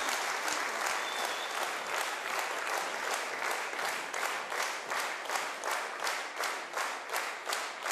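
A theatre audience applauding, a dense clapping that thins and settles into a rhythmic clap of about three beats a second.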